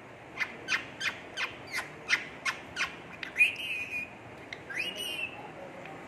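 Indian ringneck parakeet calling: a quick run of about eight short sharp calls, roughly three a second, then two longer drawn-out calls that rise and level off.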